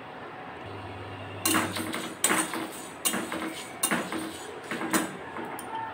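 Long metal spoon scraping and knocking around a metal kadai, stirring dry cumin seeds and dried red chillies as they roast, a stroke roughly every second from about one and a half seconds in.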